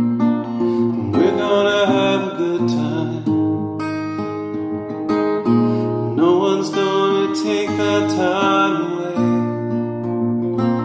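Acoustic guitar accompaniment played in a steady pattern, with a man's voice singing a phrase over it twice.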